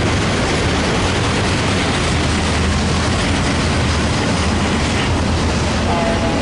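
Double-stack container well cars of a CSX intermodal freight train rolling past, a steady loud noise of wheels running on the rails.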